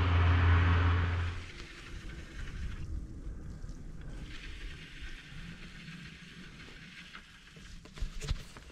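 A steady low hum with wind noise, which cuts off about a second and a half in, then quieter outdoor wind noise on the microphone with a few sharp clicks near the end.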